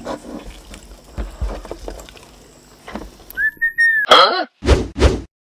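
Close-miked chewing and mouth sounds of eating flatbread with sambal. About three seconds in, a cartoon intro sound effect follows: a short whistle, a brief voice-like squawk and two quick hits, then a sudden cut-off.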